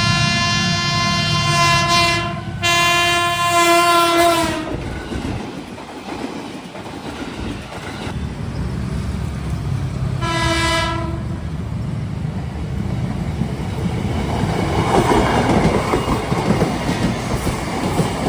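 KRL Commuter Line electric train sounding its horn: a long blast with a brief break about two and a half seconds in, dropping slightly in pitch as it ends, then a short blast about ten seconds in. From about fourteen seconds a train rumbles past with its wheels clacking over the rail joints.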